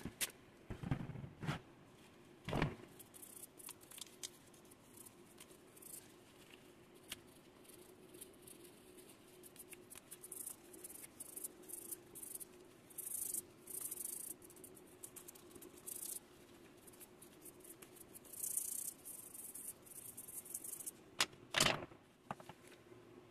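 A toothbrush scrubbing a small aluminium part coated in toothpaste: runs of short, scratchy bristle strokes, with a few knocks as the part is handled in rubber-gloved hands near the start and again near the end.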